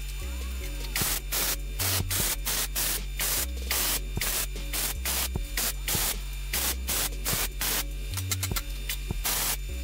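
Stick-welding arc crackling in a rapid series of short bursts, about two or three a second, from about a second in until near the end: raised expanded steel being tack-welded onto a charcoal basket frame. Background music with a low bass line plays underneath.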